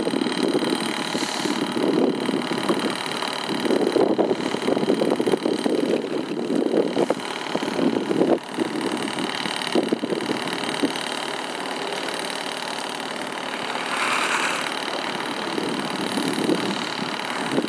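Tatra T3 tram rolling slowly over a tram switch under repair. Its wheels rumble unevenly over the rails, with a sharp knock about halfway through.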